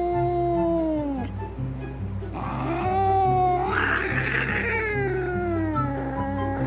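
A cat yowling in long drawn-out wails that rise and fall in pitch, one after another. The loudest wail turns harsh about four seconds in. Background music with a steady beat plays underneath.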